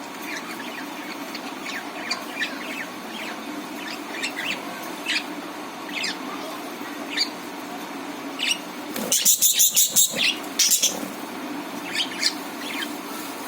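Budgerigars chirping in short, scattered calls, with a burst of loud, rapid, shrill chatter about two-thirds of the way through, over a steady low hum.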